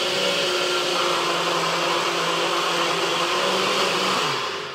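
NutriBullet blender motor running steadily at full speed, blending cashews, dates and water into a thick mayonnaise. Near the end it is switched off and the motor winds down, its hum falling in pitch as it fades.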